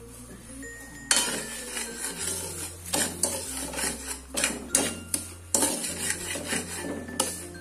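Metal spatula scraping and clinking against a metal wok as it stirs dry granulated sugar in a little oil, starting to melt it for caramel. The scraping starts about a second in and comes in quick uneven strokes.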